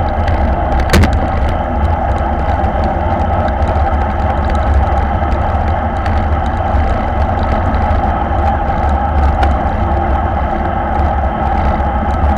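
Wind buffeting on the microphone of a bike-mounted action camera, with road bike tyres running on asphalt, at racing speed of about 45 km/h. A sharp click about a second in.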